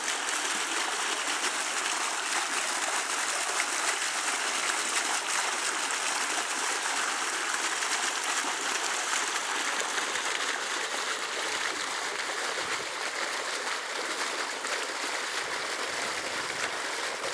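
Water gushing and bubbling up from an inlet into a shallow pond, a steady rushing splash that softens a little in the second half.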